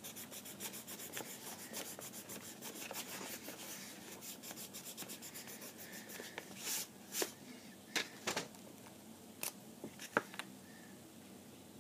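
Pencil eraser rubbing quickly back and forth on paper, erasing pencil guidelines from beneath an inked drawing. In the second half the steady rubbing gives way to about six louder, separate swipes across the paper.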